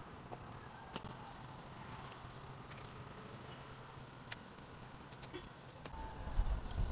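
Faint rustling and small clicks as leaves are plucked by hand off a stem cutting of Arabian jasmine, with a low rumble setting in near the end.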